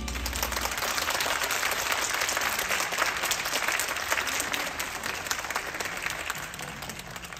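Audience applauding in a hall, the clapping gradually dying away toward the end.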